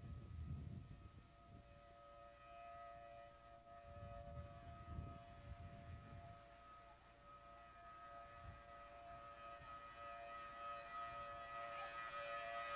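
Outdoor tornado warning siren sounding faintly, several steady tones together that swell and fade as it carries. Gusts of wind buffet the microphone with a low rumble during the first half.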